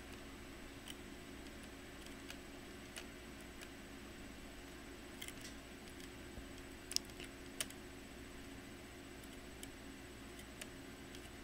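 Faint, scattered light clicks and taps from handling the opened laptop's parts, the loudest a pair about seven seconds in, over a low steady hum.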